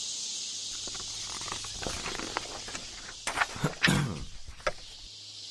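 Added exam-room background noise under a test pause: a steady high hiss with a low mains hum, and scattered knocks, clicks and rustles in the middle, including a brief voice-like sound about four seconds in.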